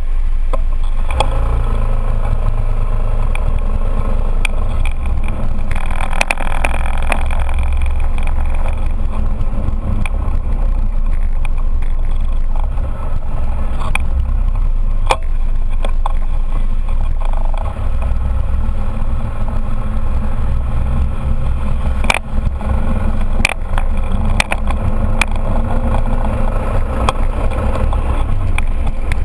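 Scooter riding along: its engine running under a heavy, steady rumble of wind on the microphone of a handlebar-mounted action camera, with scattered sharp knocks from the shaky camera mount.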